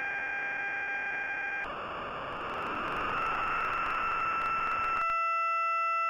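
Synthesized audio from a fractal's orbit: a few steady pitched tones over a hiss. About a second and a half in it switches to a noisier, harsher sound with different tones, and near the end to a clean chord of pure tones with no hiss. The hiss marks a chaotic orbit; the pure tones mark an orbit that has settled into a repeating pattern.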